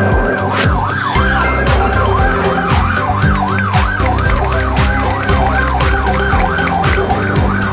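Electronic siren warbling rapidly up and down, a few times a second, over music with a steady beat.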